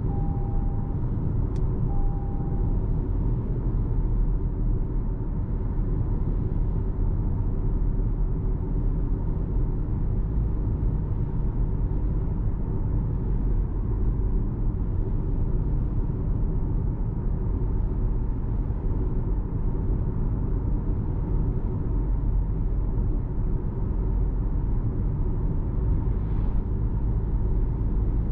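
Cabin noise inside a 2026 Toyota RAV4 Hybrid on the move: a steady low road-and-tyre rumble. Two short electronic beeps sound in the first few seconds.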